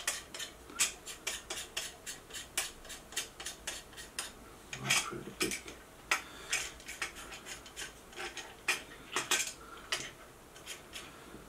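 Metal guidescope rings and their thumbscrews clicking and clinking as a guidescope tube is slid into them and turned by hand, in irregular taps throughout.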